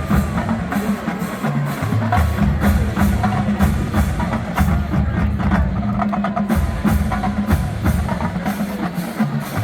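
Marching band drumline playing a cadence: rapid snare strikes over pitched bass-drum notes that step up and down.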